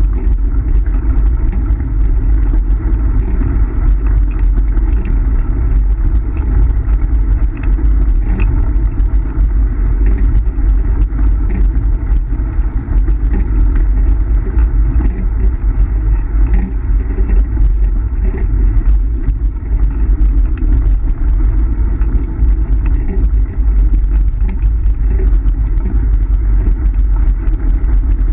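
Kick scooter rolling fast over a gravel road: a steady loud rumble from the wheels, scattered with small rattles and clicks of stones, with wind buffeting the microphone.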